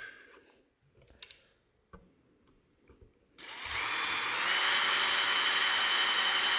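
A few faint handling clicks, then an electric drill with a small bit starts about halfway through and runs steadily, picking up a little in pitch and level a second later, drilling a hole in a plastic part.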